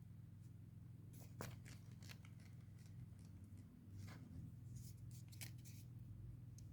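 Faint clicks and rustles of a toy and its wrapping being handled, scattered irregularly over a low steady hum.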